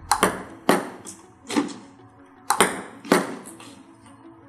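Table tennis serves: a celluloid ball clicking off the rubber of the paddle and bouncing on the table as sharp, ringing pings. The pings come in two quick runs, each a few hits about half a second apart.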